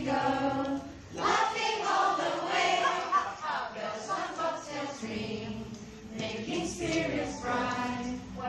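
A group of parents and young children singing a children's song together, unaccompanied.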